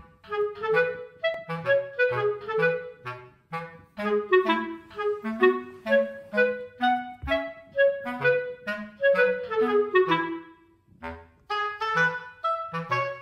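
Background music: a light tune of short, bouncy notes over a plucked-sounding bass line, with a brief pause about eleven seconds in.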